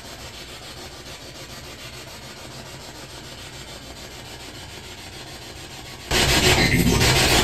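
Faint steady static hiss, then about six seconds in a sudden loud burst of spirit box radio static sweeping through stations, with a garbled voice-like sound in it that the investigators hear as a voice saying 'I'm evil'.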